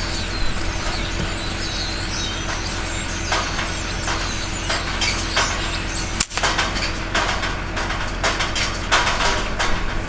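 Vehicle engine idling steadily, a low hum with a constant tone above it, with high chirps in the first few seconds and scattered light knocks and rustles.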